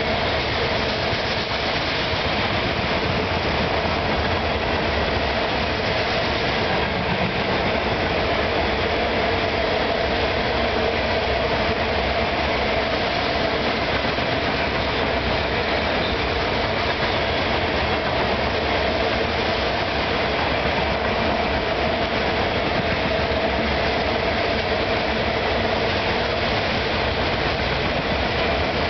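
Coal cars of a long freight train rolling past at speed: a steady, unbroken rush of steel wheels on the rails, with a constant mid-pitched hum running through it.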